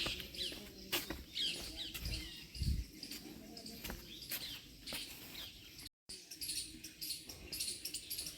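Several small birds chirping and calling in quick, short notes, with scattered clicks and a brief low rumble about two seconds in. The sound cuts out for an instant about six seconds in.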